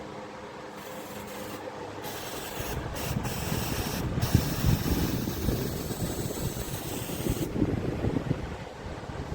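Electric floor fan running with a steady whoosh. From about two seconds in, a louder rough rumbling, scraping noise builds and fades away near the end.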